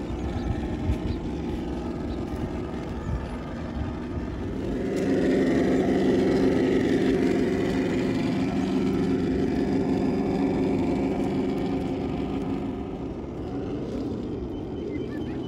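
Engine sound from a Traxxas TRX6 6x6 RC crawler's onboard sound system, a steady low rumble that swells louder about five seconds in and eases off again near the end.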